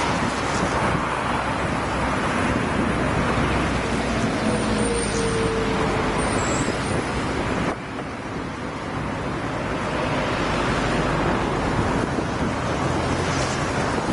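Freight train rolling past, a steady rumble of wheels and wagons on the rails, with wind on the microphone. The sound drops suddenly about eight seconds in, then builds back.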